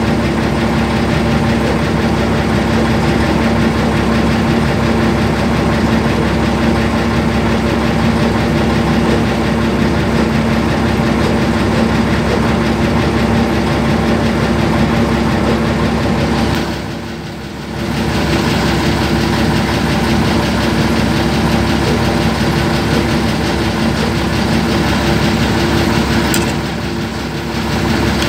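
Heavy diesel engine of a construction machine running steadily with a constant droning hum. The engine is heard close by, as from the machine's cab. The sound eases off briefly a little past halfway and again near the end, then comes back.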